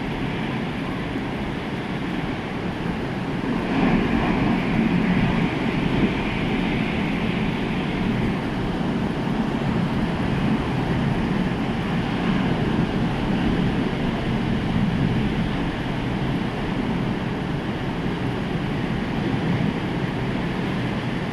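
Rough storm surf from a hurricane-churned sea and wind buffeting the microphone: a steady low rumble that swells about four seconds in.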